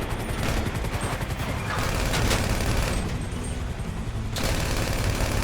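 Video game gunfire, rapid repeated shots, over game music.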